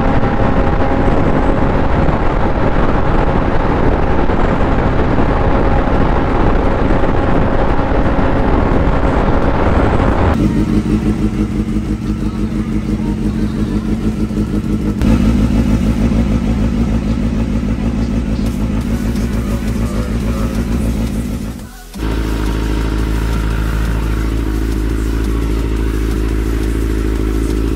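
Suzuki GSX-R600's inline-four engine running. The sound changes abruptly about 10 and 15 seconds in, then dips briefly about 22 seconds in before settling into a steady, lower note.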